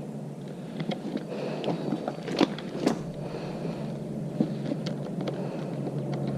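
Small sharp clicks and taps of metal parts being handled while fitting a new clutch cable and its adjuster at a dirt bike's handlebar lever, over a steady low hum.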